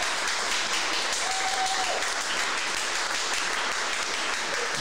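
Audience applauding steadily, with one held cheer from a listener about a second in.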